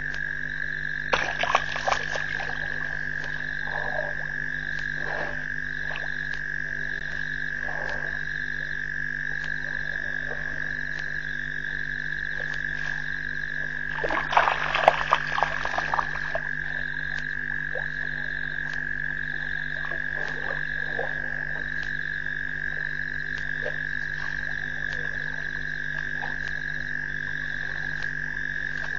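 Chorus of frogs calling at a waterhole at night: a steady high trill with a softer pulsing call repeating about once a second, over a low steady hum. Two short bursts of crackling, splashy noise break in, about a second in and again about halfway through.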